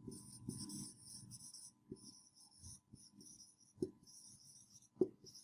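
Whiteboard marker squeaking faintly across a whiteboard in short strokes as words are written, with a few soft taps.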